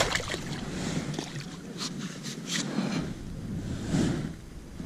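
Wind on the microphone and sea water lapping against a kayak's hull, with a few sharp clicks about two seconds in.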